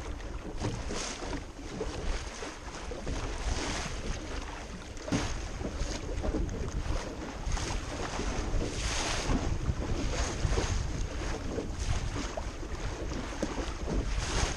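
An O'Day Osprey daysailer under sail into a chop, waves splashing against the bow every second or two over water rushing along the hull, with wind buffeting the microphone.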